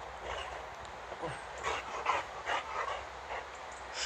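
Boxer dog making a run of short, breathy excited sounds, a few each second, as it greets a person happily.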